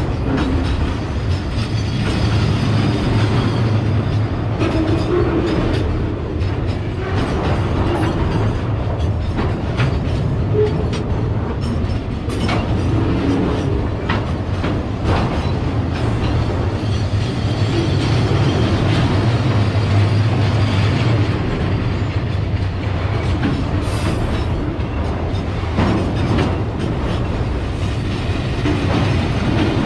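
Railway tank wagons of a long freight train rolling past at close range: a steady rumble of wheels on rails, with scattered irregular clicks and knocks.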